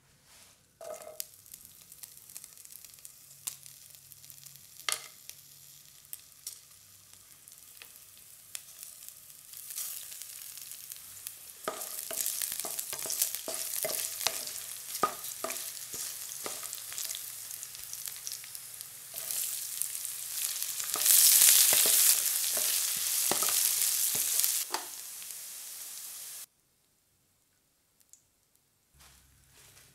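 Whole spices and green chillies sizzling in hot oil in a nonstick pan, stirred with a wooden spatula that gives scattered sharp taps. The sizzle is faint at first, grows louder from about a third of the way in, is loudest a little past the middle, and cuts off suddenly near the end.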